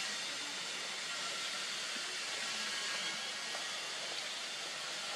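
Steady, even hiss of outdoor background noise, with no distinct calls, voices or knocks standing out.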